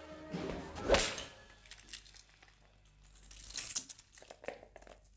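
A buzzing like a fly's ends in one sharp smack, a swat at the fly, about a second in. Light scattered clicks and rattles follow a couple of seconds later.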